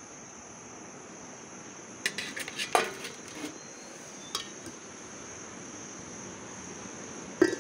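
Enamel cooking-pot lid and dishes clattering as they are handled, a run of clatters about two to three and a half seconds in, a click just after four seconds and a sharp clink near the end. A steady high chirring of insects runs underneath.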